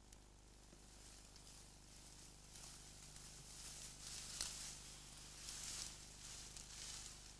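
Faint rustling that swells and fades a few times, with one sharp click about four and a half seconds in, over a steady low hum.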